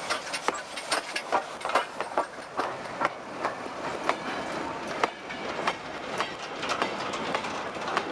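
Goods train of steel open wagons rolling past close by, wheels clicking over the rail joints in a clickety-clack rhythm of about two sharp clicks a second over a steady running rumble.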